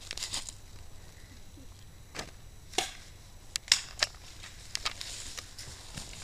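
Spring-powered airsoft pistols firing in a skirmish: irregular sharp snaps, a cluster of them about three to four seconds in, with BBs striking nearby surfaces.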